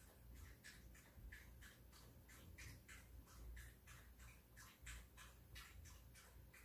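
Shih Tzu eating from a stainless steel bowl: faint, quick smacking of the mouth and tongue as it eats, about three a second.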